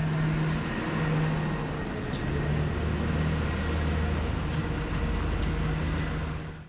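Airport apron bus idling with its doors open, a steady low engine hum, with a few light knocks as wheeled suitcases are taken off.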